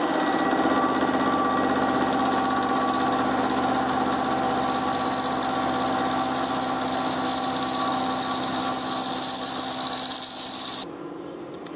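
Milling machine end mill cutting through thin-wall rectangular hollow-section tube under flood coolant: a loud, steady cutting whine made of several steady tones. Near the end it drops off sharply to a much quieter running sound.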